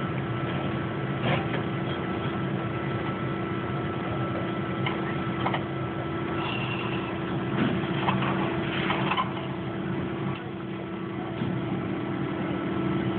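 A steady engine drone with a few short knocks and clanks over it, the clanks clustered a little past the middle.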